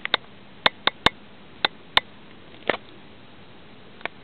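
About nine short, sharp clicks at irregular intervals, bunched in the first three seconds with one more near the end, from an old handheld CB radio being handled and its switches worked.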